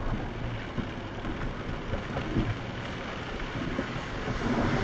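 Cab noise of an off-road vehicle crawling a muddy trail: steady engine and tyre noise with a low hum, and a few light knocks and rattles as it bounces over the ruts.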